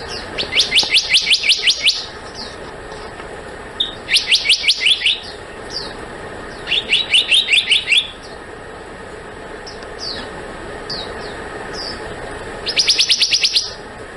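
Black-naped monarch calling: four quick bursts of rapid, evenly repeated high notes, each lasting about a second, with short single down-slurred notes between them.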